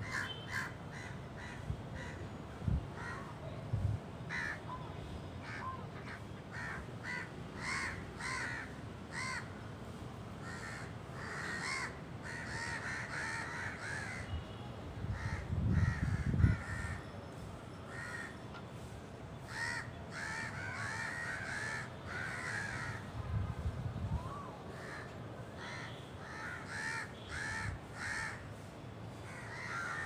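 A flock of crows cawing, many short harsh calls repeating and overlapping, with two brief low rumbles about halfway through and again later.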